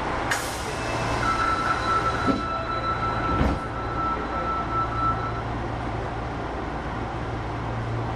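Osaka Metro 25 series subway train running, heard from inside the car as a steady rumble. A hiss starts just after the beginning and fades within about two seconds, a steady high whine holds for about four seconds, and there is a single knock midway.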